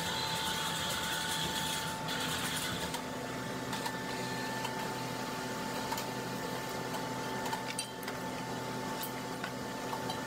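Steady machine hum with a constant high-pitched whine, and a few faint light clicks.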